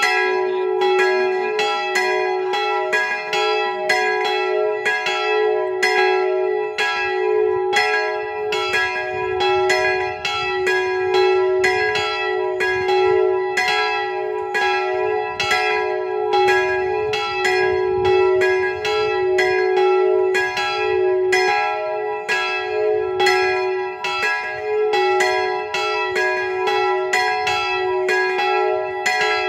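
Bronze church bells, cast by the Jan Felczyński foundry, swinging and ringing together in a dense, overlapping peal of several strokes a second over a long-sustaining ringing tone. The small bell's clapper rebounds, striking twice per swing.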